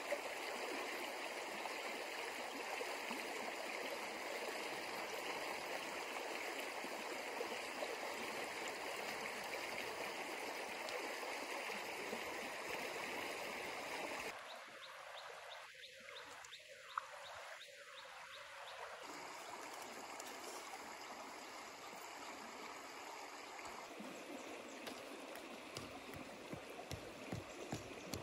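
Steady rush of a flowing stream, which drops to a quieter level about halfway through. Near the end, a few sharp knocks of a stone driving a tent stake into the ground.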